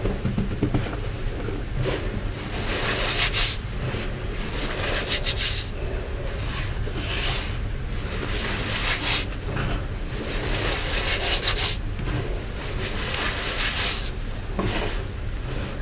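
Hands rubbing, scooping and crumbling crunchy yellow Nexo powder, letting it sift through the fingers. Gritty, crunchy swishes come in waves every couple of seconds over a steady low hum.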